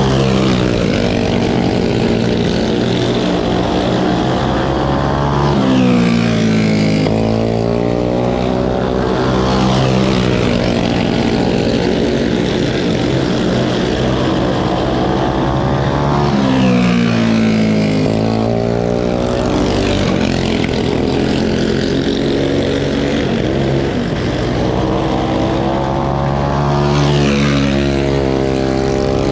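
Several big block open-class racing go-kart engines running hard around a dirt oval under green. Their pitch swells and sweeps up and down each time the pack passes, about every ten seconds.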